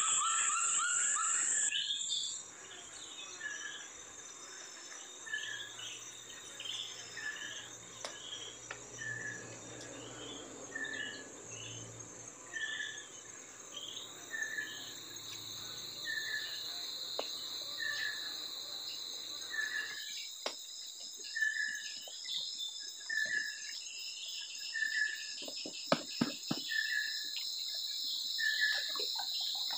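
Forest insects droning steadily in a high, even tone, louder for the first two seconds, with a short chirp repeating roughly once a second. In the last third, scattered small splashes and knocks come from the water as the net is handled from the boat.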